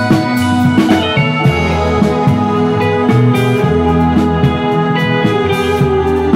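Live band music: electric guitars, keyboard and drums playing a song, with a held lead melody line over the beat.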